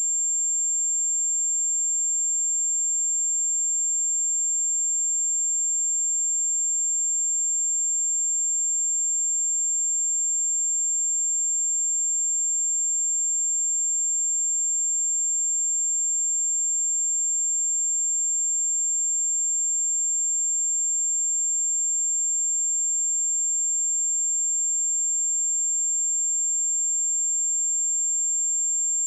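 A single pure test tone at 7365 Hz, a steady high-pitched whistle held at one pitch and one level throughout, with nothing else heard.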